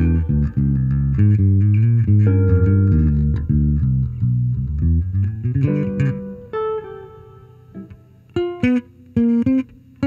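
Archtop hollow-body electric guitar and a headless multi-string electric bass playing an instrumental duet: full, steady bass notes under the guitar for about six seconds, then the low end drops out and the music thins to sparse, quieter plucked notes near the end.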